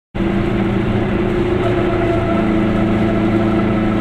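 Goggomobil's two-stroke twin-cylinder engine running steadily as the car drives at road speed, heard from inside the small car with tyre and road noise under the even engine drone.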